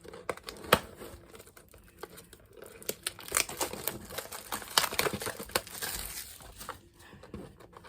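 Wrapper and packaging of a box of Mosaic basketball cards crinkling and tearing as it is opened, in irregular crackles and snaps that are busiest in the middle.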